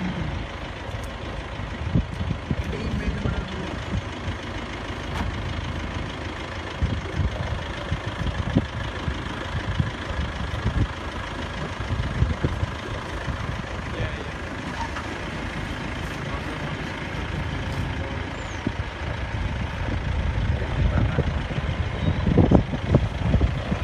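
A vehicle engine runs steadily at idle, a low rumble with occasional knocks that grow louder near the end.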